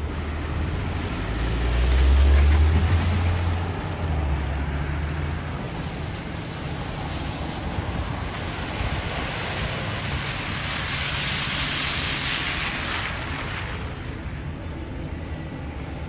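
Downtown street traffic. A low engine rumble swells and fades over the first few seconds, then a passing vehicle's tyre hiss rises and falls about three-quarters of the way through.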